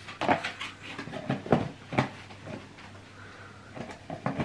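Scattered light clicks and taps of plastic food boxes and cutlery being handled on a kitchen table, as a box of crispy fried shallots is opened and reached into.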